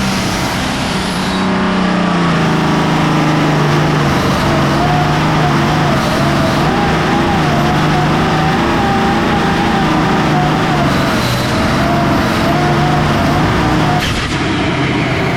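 466 Hot Farm class pulling tractor's diesel engine running loud under full load during a pull, with a higher wavering whine over it. The sound changes abruptly near the end.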